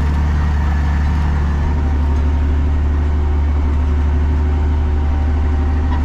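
Tractor engine running steadily under load while pulling a plough, heard from inside the cab as an even, unchanging low drone.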